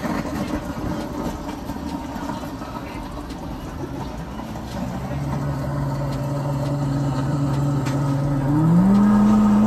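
Smoothie blender motor running: a steady hum comes in about five seconds in and grows louder, then jumps quickly to a higher steady pitch near the end.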